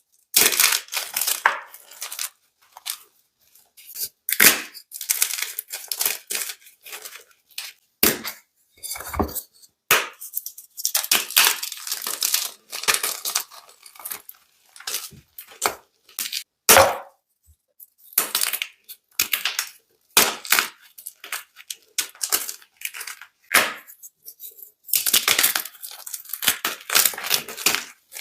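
Gym chalk being crushed and crumbled, in irregular bursts of dry crunching and crackling with short pauses between.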